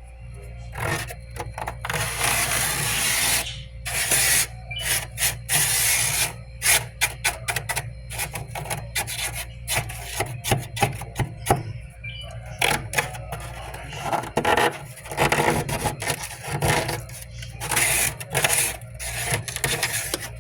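Frost buildup being scraped off a humidifier: rapid short scraping strokes with a few longer sweeps, over a steady low hum.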